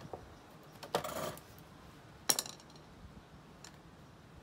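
Metal clinks and rattles from a steel screwdriver being worked under the scooter's deck and laid down on concrete. A rattling clatter comes about a second in, and a single sharp, ringing clink a little after two seconds.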